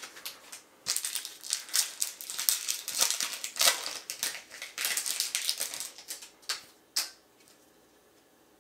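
Trading-card pack and cards being handled: dense crinkling and rustling of the wrapper with many sharp clicks for about five seconds, ending in a single click.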